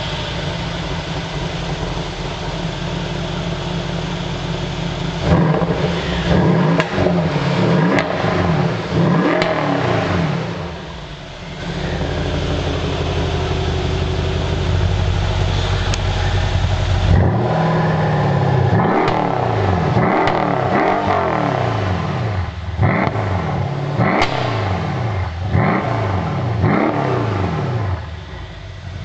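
Mercedes-AMG S63 W222's 5.5-litre twin-turbo V8 running through custom stainless-steel rear silencers, idling at first, then revved in quick blips from about five seconds in, with each blip's pitch shooting up and falling back. After a short spell of steady running in the middle, a longer run of sharp rev blips follows until near the end.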